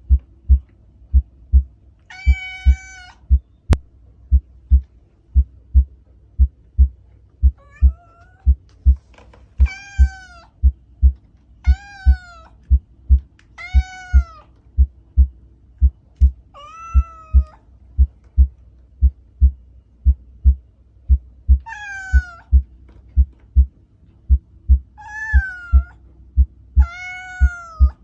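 House cats meowing about nine times, each meow under a second long, over a steady heartbeat beating about twice a second and a faint low hum.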